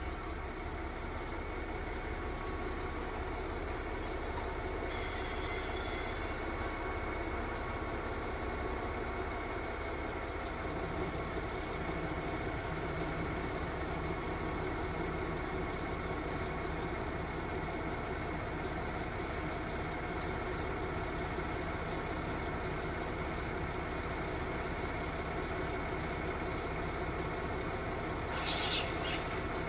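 Diesel railcar engine running steadily, with a brief high squeal about four to six seconds in and a short hiss near the end.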